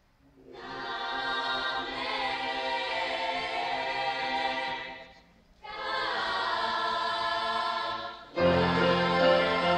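Youth choir singing long held chords, starting after a brief silence and breaking off once for about half a second in the middle. Near the end a louder, fuller passage begins, with deep low notes underneath the voices.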